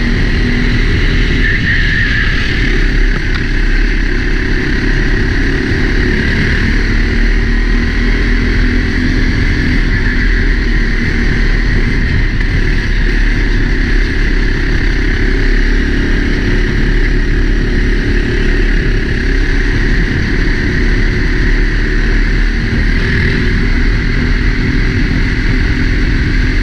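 Four-stroke racing kart engine running steadily, heard from a helmet-mounted camera as a dense, unbroken rumble.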